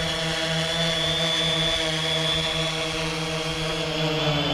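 Quadcopter drone's propellers whining at a steady pitch as it hovers just above the ground while coming in to land. The pitch begins to sag at the very end as the motors throttle down.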